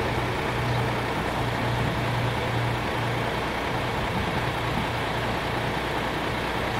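Diesel truck engine idling, a steady low hum over a broad rumble.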